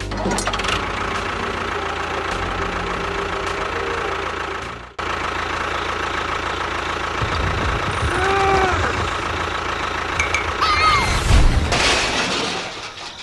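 An engine or motor running steadily, cutting out abruptly about five seconds in and resuming at once. Short rising-and-falling pitched sounds come over it about eight seconds in and again near the end.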